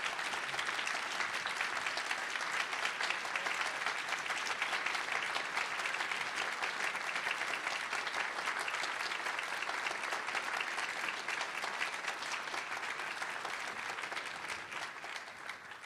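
Audience applauding, a standing ovation: steady clapping that dies away near the end.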